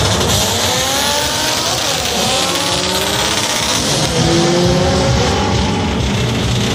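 Drag-race car engines revving hard at the starting line, their pitch climbing in several rising sweeps over a steady wash of track noise.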